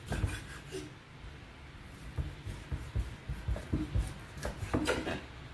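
Kitchen knife cutting pork spare ribs on a round wooden chopping block: the blade rasps through the meat and knocks dully on the wood in a run of short strokes.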